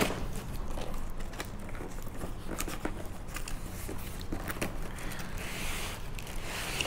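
A cardboard shipping box being opened by hand, its tape worked loose with a pen: scattered light taps, scrapes and crinkles of cardboard and tape, over a low steady hum.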